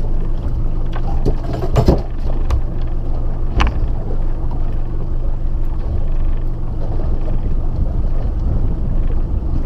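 Boat engine running steadily at low speed, a constant low hum, with a few sharp knocks on the deck in the first four seconds.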